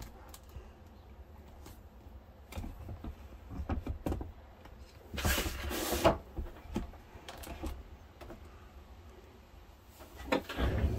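Scattered knocks and rubbing of the camera and things being handled on a workbench, with a louder scraping rush about five seconds in and another just before the end, as the camera nearly falls over and is caught.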